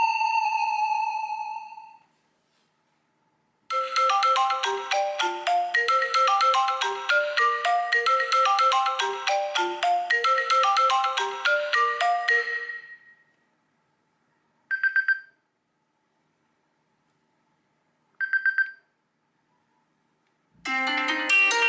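Classic iPhone ringtones playing in turn. A fast melody of short pitched notes runs for about nine seconds, then two brief high trills sound a few seconds apart, and another ringtone melody starts near the end.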